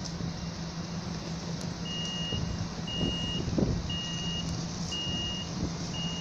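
Electronic warning beeper sounding a series of even, high-pitched beeps, about one a second and each about half a second long, starting about two seconds in, over a steady low hum and rumble.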